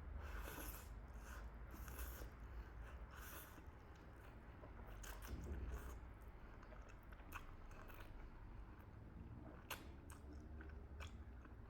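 A person chewing chicken chilli momo close to the microphone, with irregular small mouth clicks and smacks over a low steady hum.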